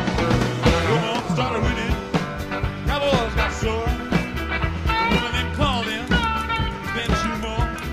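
Country-rock band music in an instrumental passage: a lead guitar plays bending notes over bass and a steady drum beat.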